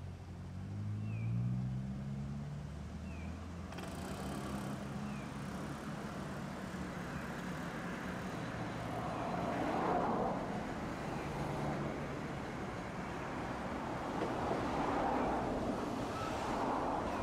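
A vehicle pulling away, its motor hum rising in pitch over the first couple of seconds, then running steadily with rising road or rail noise.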